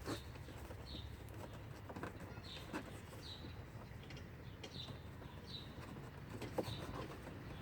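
Faint bird chirps, short and high with a falling pitch, repeated about once or twice a second over a low steady hum. A few light knocks come from handling, the sharpest near the end.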